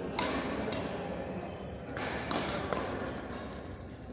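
Badminton rackets hitting a shuttlecock during a rally, sharp smacks at the start and a quick run of three about two seconds in, echoing in a large sports hall.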